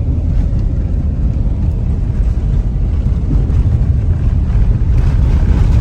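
Car driving along, heard from inside the cabin: a steady low rumble of engine and tyres on the road.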